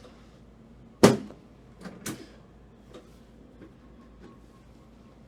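Two knocks on a chiropractic treatment table as the chiropractor sets up a lower-back adjustment: a sharp, loud one about a second in and a fainter one a second later, with a few light ticks.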